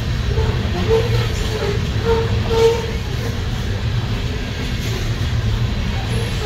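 Freight train coal hopper cars rolling past: a steady low rumble of steel wheels on rail, with brief metallic squealing tones coming and going.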